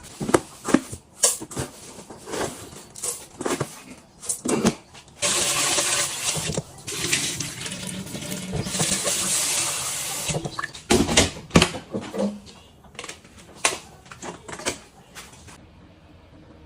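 Kitchen tap running hard into a pot or basin for about five seconds in the middle. Before and after it come knocks and clatter of pots and utensils being handled.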